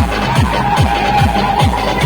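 Electronic dance music in a techno style, with a deep kick drum that drops in pitch on each hit, about two and a half beats a second, under a steady held synth tone.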